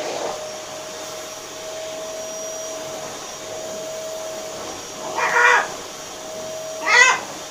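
Pet macaw making two short talking vocalizations, about five seconds in and again about seven seconds in, over a steady hum.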